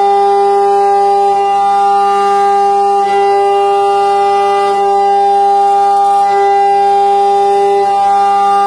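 Haas VF-2SS spindle turning a Korloy Pro-X mill at 12,000 RPM through an aluminium block, a loud steady high-pitched whine with several overtones that falters briefly a few times as the cut moves. It is a heavy cut: half-inch depth at 43% spindle load.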